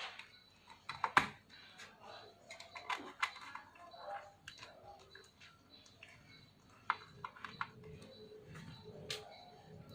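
Irregular clicks and taps of plastic laptop parts being handled and fitted during reassembly, with one louder click about a second in.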